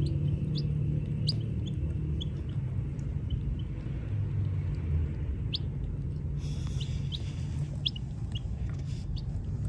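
Baby chicks peeping: short, high chirps a second or so apart, some in quick pairs, over a steady low rumble.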